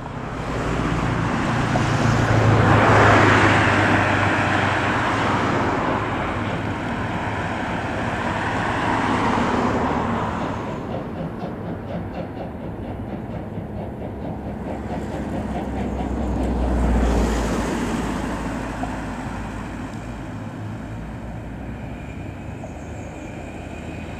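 Steam locomotive hauling passenger coaches past, loudest as it goes by about three seconds in, then the coaches rolling past with a rhythmic clatter that slowly fades.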